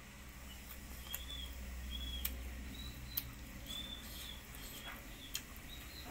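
Mouth clicks and wet smacks from eating rice and fish curry by hand, about once a second, with short high chirps repeating at a similar pace.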